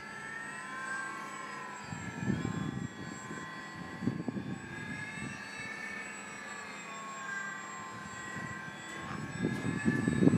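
A radio-controlled model airplane's OS-95 engine running steadily in flight, its whine slowly rising and falling in pitch as the plane moves about overhead. Bursts of low rumble come and go a few times, loudest near the end.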